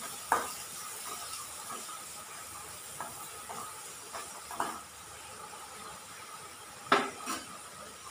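Metal spoon stirring in an aluminium kadai, scraping and knocking against the pan a few times, the loudest knock about seven seconds in, over a faint steady hiss.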